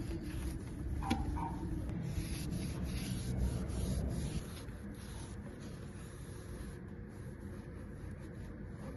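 Rubbing and scrubbing, as of a cloth or brush worked back and forth over a surface, heavier for the first four seconds or so and lighter after that. Two short squeaks sound about a second in.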